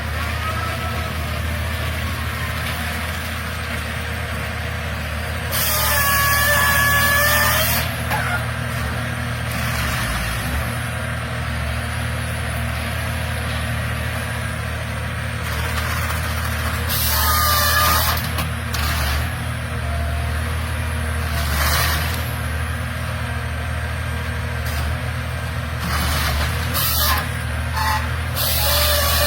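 Heavy forestry harvester's diesel engine running steadily under load, with loud bursts of hiss and a wavering whine from its hydraulics and cutting head about six seconds in and again around seventeen seconds, and shorter sharp bursts near the end.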